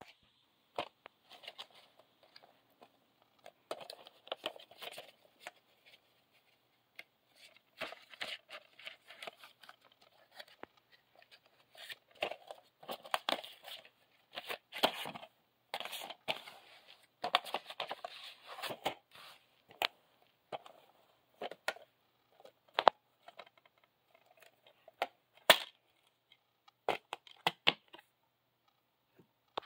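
Hands unwrapping and handling a Blu-ray steelbook: intermittent crackling and tearing of plastic and paper packaging as the wrapping and slipcover come off. In the later part a few sharp clicks and taps come from the steel case being opened and the disc being taken off its hub.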